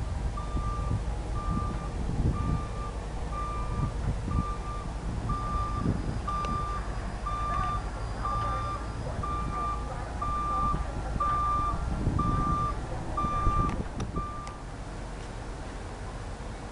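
Reversing alarm of a construction vehicle beeping about once a second, one steady tone, over a low engine rumble; the beeping stops near the end.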